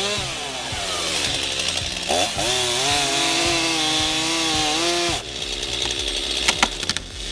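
Chainsaw engine running at high revs, its pitch dipping and rising as it works. It cuts off abruptly about five seconds in, followed by several sharp cracks and snaps.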